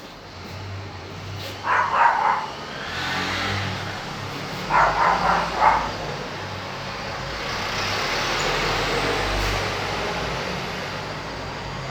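A steady background rumble and hiss, like road traffic, that grows louder a few seconds in and holds. Two short bursts of barks come about two and five seconds in.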